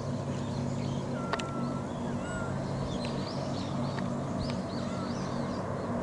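Steady low drone of a distant LCAC military hovercraft crossing the bay, a hum of several low tones. Small birds chirp and whistle over it.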